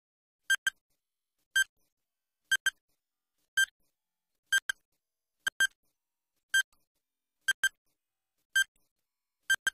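Electronic countdown-timer beeps, one about every second, some as quick double blips, ticking off a quiz question's ten-second answer time.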